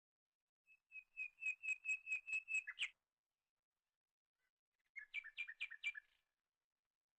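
A bird calling in two bursts of rapidly repeated clear notes, the first a run of about ten notes lasting about two seconds, the second a shorter run of about five notes a couple of seconds later.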